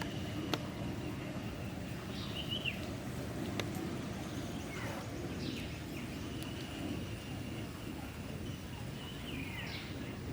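Outdoor ambience: a steady low background noise with a thin, steady high tone, a few short falling chirps, and two sharp clicks in the first few seconds.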